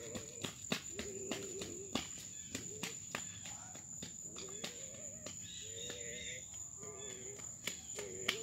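Steady high-pitched chirring of an insect chorus, with scattered light clicks and short, faint wavering voice-like tones.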